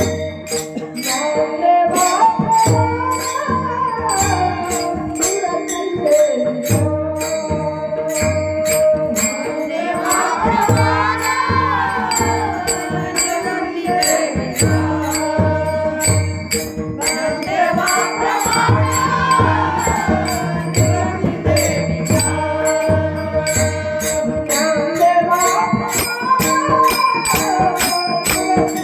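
Devotional bhajan music: a singer's long, gliding melodic phrases over a held drone, a regular low drum beat and jingling percussion.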